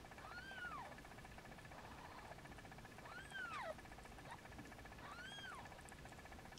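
Newborn kitten mewing three times: faint, thin, high cries that each rise and then fall in pitch, a few seconds apart.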